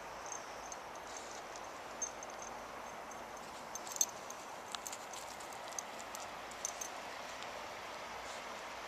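River water running steadily over a shallow rocky riffle, with scattered light clicks and ticks, the sharpest about four seconds in.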